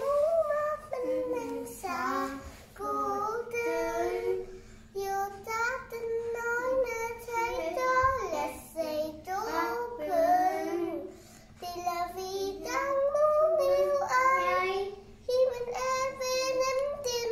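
A young girl singing a song in short phrases, with held notes between breaths.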